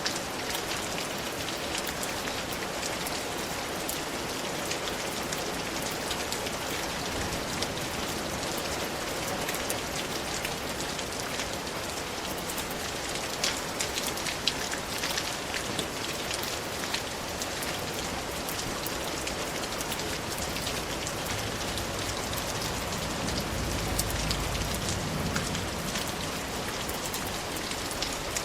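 Steady rain falling, a dense even hiss with many small drop ticks. A soft low rumble swells briefly a little before the end.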